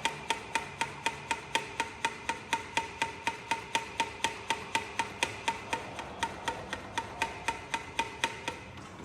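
Background music: a fast, even clicking beat, about four clicks a second, each with a short ringing note.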